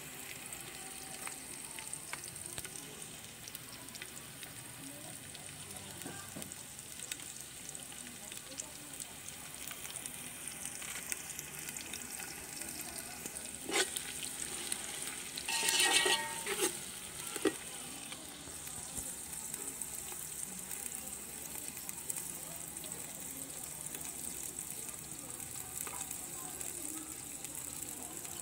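Sliced onions sizzling steadily in oil in an aluminium pot on low heat, browning. About halfway through, a few louder clicks and a brief scrape as the slotted metal spoon stirs them.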